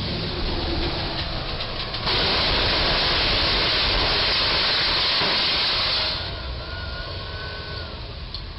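Box truck's roof striking the low railroad bridge and being torn open against it: a loud, harsh noise of scraping and tearing metal that starts suddenly about two seconds in, holds steady for about four seconds, and cuts off as the truck stops.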